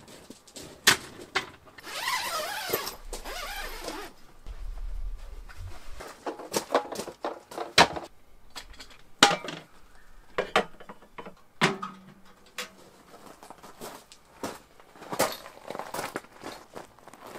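Camping gear being handled and set down: irregular knocks, clicks and thunks, with a stretch of rustling about two seconds in.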